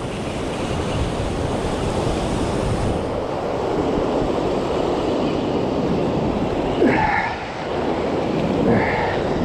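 Surf breaking on the rocks, a steady rushing noise mixed with wind on the microphone, with two brief short sounds about seven and nine seconds in.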